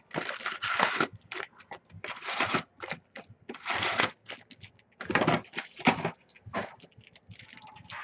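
Trading cards and foil card-pack wrappers being handled: irregular crinkling, rustling and sharp crackles.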